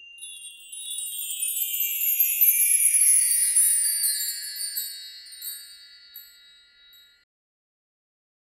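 Logo-intro chime sound effect: a cluster of high, bell-like ringing tones gliding downward in pitch. It swells over the first few seconds and fades away about seven seconds in.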